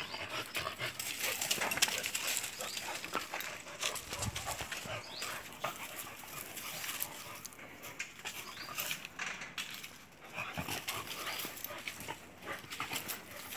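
A beagle and a black dog play-fighting: dog vocal sounds and irregular scuffling of paws and bodies on sandy ground.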